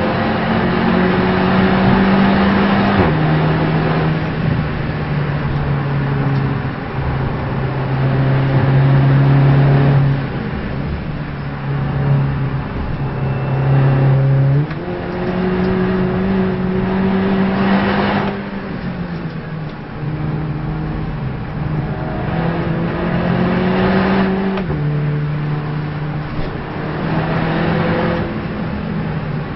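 Race car engine heard onboard at speed. Its note holds steady for several seconds at a time and steps sharply up or down in pitch a handful of times as gears are changed, over steady road and tyre noise.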